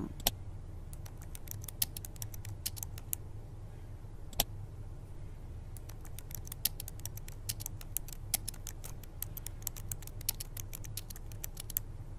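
Typing on an Acer laptop keyboard: quick, irregular key clicks in runs, with one louder click about four and a half seconds in, over a faint steady low hum.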